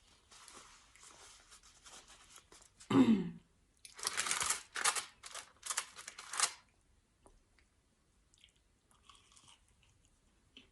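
Close-up crunching and chewing of crispy fried food, a burst of loud crunches in a row from about four seconds in that stop after a couple of seconds. A short falling vocal sound comes just before the crunches.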